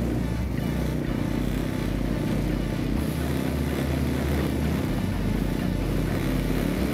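Stels snowmobile engine running steadily as the machine drives slowly over snow.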